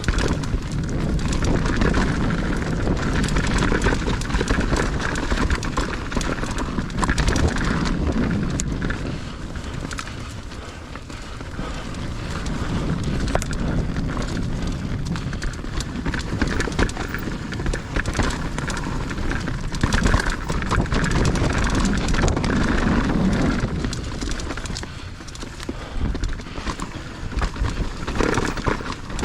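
Mountain bike ridden fast over a dirt trail: knobby tyres rumbling over the ground while the chain and frame rattle with many quick clacks over bumps, swelling and easing as the terrain changes.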